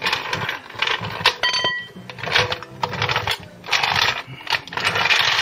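Hydraulic trolley jack being lowered and dragged out from under the car: a run of metal clanks and rattles as its steel wheels and handle knock on the paving, with one short ringing clink about a second and a half in.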